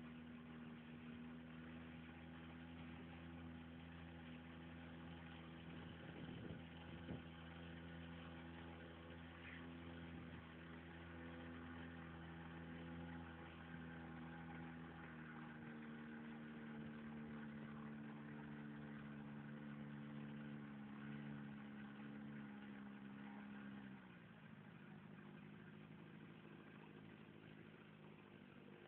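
Boat engine running steadily. Its note shifts a little about halfway through, then falls in pitch and gets quieter about five seconds before the end.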